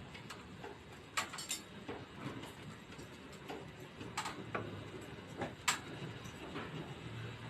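Knife working around the bone of a ham leg during deboning: scattered sharp clicks and light scrapes, a few of them louder, at irregular intervals.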